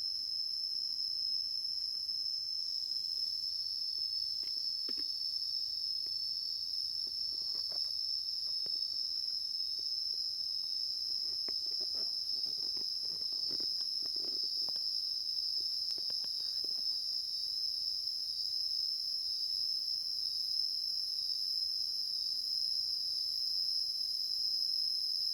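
Steady, high-pitched chorus of insects. Faint clicks and knocks come and go through the middle.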